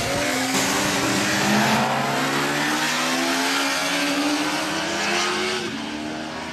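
Sport motorcycle engines on a race track accelerating out of a corner and riding past. The engine note climbs and then drops back in repeated steps. The sound fades a little near the end.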